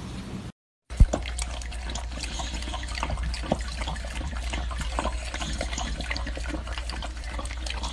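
Running water, with many small splashes and clicks, over a steady low hum.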